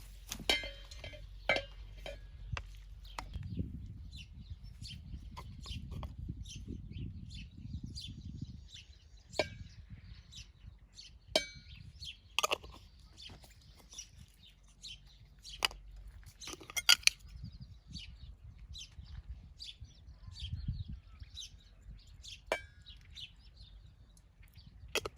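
Scattered clinks and taps of cooking utensils against dishes and pans, irregular and sharp, with a few louder clinks around the middle.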